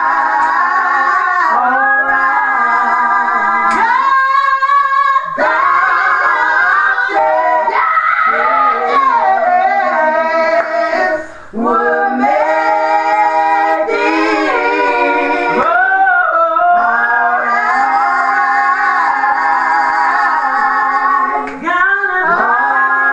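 A woman singing a gospel song, drawing out long held notes that bend and slide between pitches, with brief breaks for breath.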